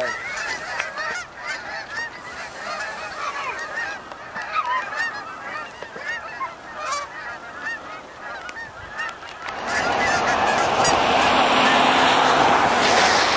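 A flock of geese honking overhead, many calls overlapping. About nine and a half seconds in, a loud rushing noise comes in and largely covers the calls.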